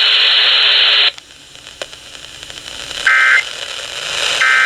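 Emergency Alert System (SAME) end-of-message data bursts: two short, shrill two-tone warbling bursts about 1.3 s apart, about three and four and a half seconds in, marking the end of the alert. Before them, a second of loud radio static cuts off suddenly.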